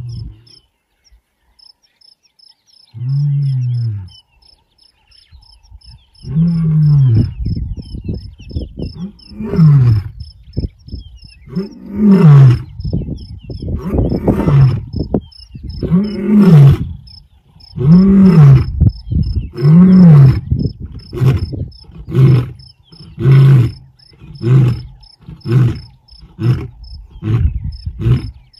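Male lion's roaring bout. It opens with two low moans, builds into a series of long, loud roars that rise and fall in pitch, and trails off into shorter grunts coming about one a second.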